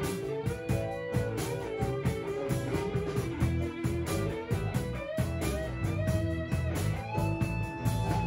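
Background music: a guitar-led instrumental with a steady beat.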